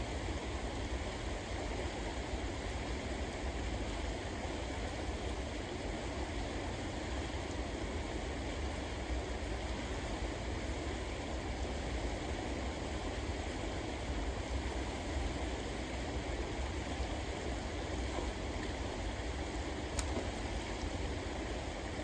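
River water rushing steadily, an even wash of noise, with a single faint click near the end.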